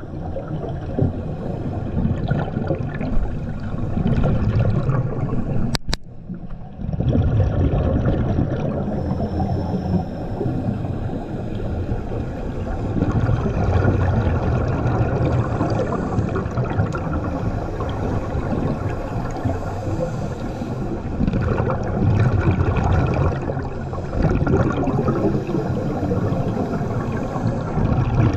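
Muffled underwater rumble and gurgle of scuba divers' exhaled bubbles and regulator breathing, picked up by a submerged camera. The rumble swells and eases every few seconds. There is a sharp click and a brief lull about six seconds in.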